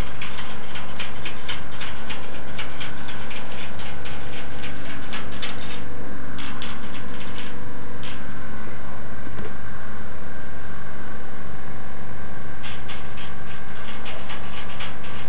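Angora rabbit drinking water: quick licking ticks, about five a second, that stop for about five seconds past the middle and start again near the end, over a steady low hum.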